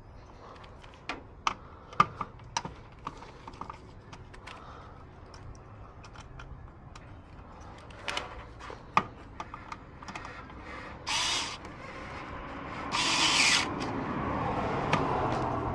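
Hand tool work in the electrical terminal panel of a Daikin outdoor air-conditioning unit: scattered clicks and taps of a screwdriver on the terminal screws and panel. Later come two short rasping bursts, the second the louder.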